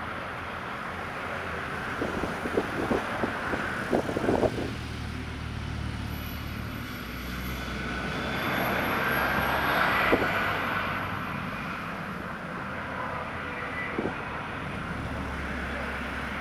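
A railway train passing at low speed, with a run of clanks and knocks from the wheels and couplings. The sound swells to its loudest about ten seconds in, then falls back to a steady rumble.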